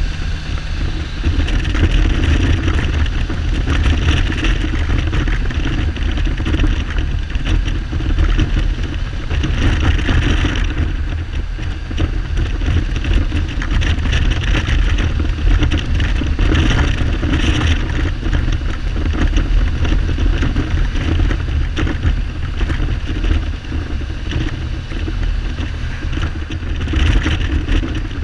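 Kawasaki Z1300's inline six-cylinder engine running while the bike is ridden, under heavy wind noise on the helmet-mounted microphone. The engine is not running on all cylinders; the owner suspects the carburettors are fouling the spark plugs.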